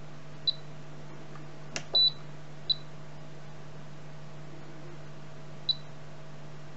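Spektrum DX6i radio transmitter beeping as its menu roller is worked: four short high beeps, the second one longer and the loudest, with a click just before it, over a faint steady hum.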